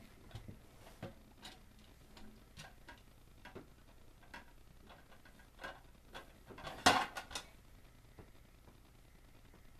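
Scattered light taps and clicks of a toddler handling toys, about one a second, with a louder quick cluster of knocks about seven seconds in.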